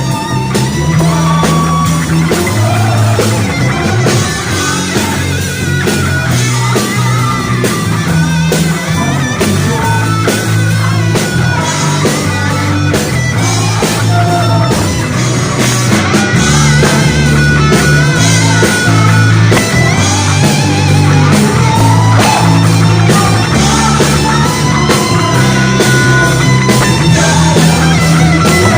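Rock-style music played on guitar over a prominent, shifting bass line with drums.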